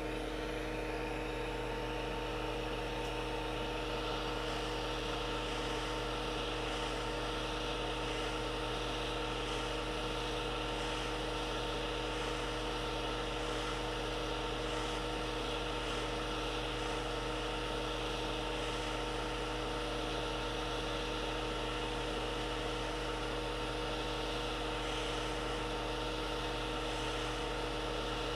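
Hot air rework station blowing onto the NAND chip of an SSD circuit board to melt its solder: a steady hiss of air over a constant hum and whine from the station's fan.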